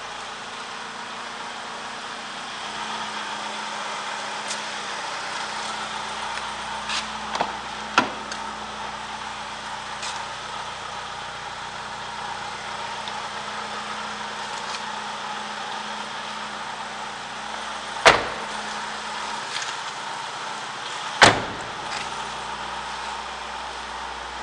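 Car engine idling under a steady hiss, with a few light knocks about a third of the way in and two loud thumps of car doors being shut, three seconds apart, later on.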